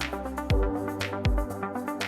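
Electronic background music with a steady kick-drum beat and sustained synth chords.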